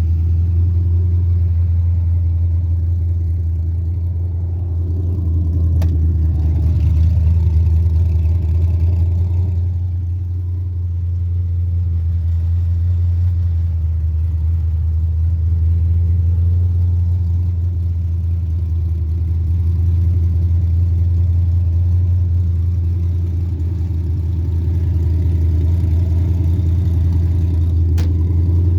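Carbureted 5.3 LS V8 engine running steadily with a deep, even drone, its loudness swelling and easing slightly a few times.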